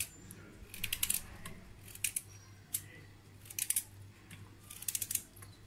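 Knife slicing through a raw carrot held in the hand, cutting it into rounds: four crisp crunching cuts, a second or so apart.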